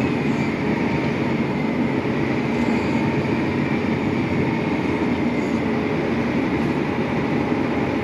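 John Deere 9360R tractor pulling a grain cart across the field, its diesel engine and drivetrain giving a steady, loud drone with a faint whine above it.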